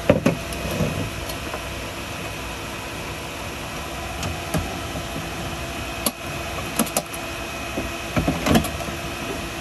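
Metal ammo-can battery box being handled and set down into a floor compartment: a few knocks and scrapes of the can and its cables, the loudest near the end, over a steady machine hum.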